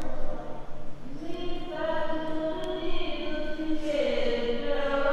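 Women singing Sikh kirtan (gurbani hymns), with long held notes.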